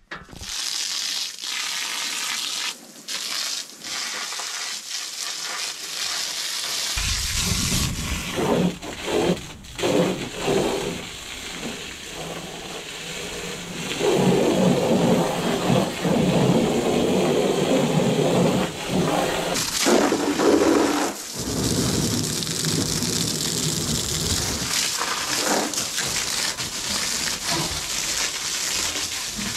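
A water spray rushing and splashing against a farm crop sprayer as it is rinsed off. The splashing grows heavier about seven seconds in and is loudest from about fourteen to twenty seconds in.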